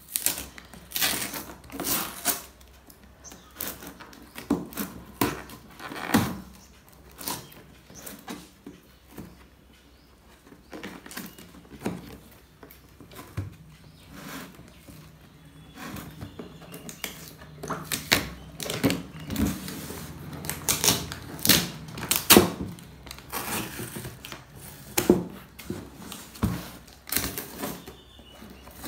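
Packing tape being picked at and peeled off a cardboard shipping box, with irregular rips, scrapes and knocks as hands handle the cardboard.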